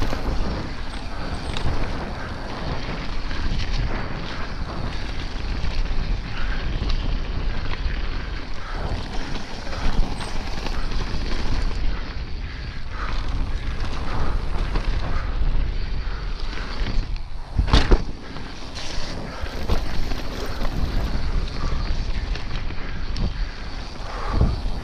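Wind buffeting an action camera's microphone over the rolling and rattling of a Yeti SB150 mountain bike's tyres and frame on a rough dirt trail, with one sharp clack about three-quarters of the way through.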